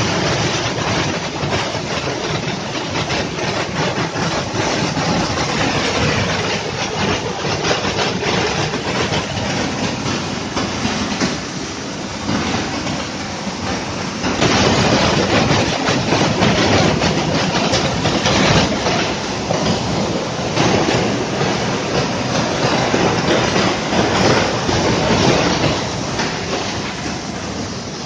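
The Partizan waterfall, a 4 to 6 m cascade, pouring into its plunge pool: a steady rush of falling water that gets louder about halfway through.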